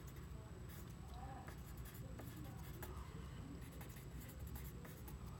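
Pen writing on paper: faint scratching of short strokes, off and on.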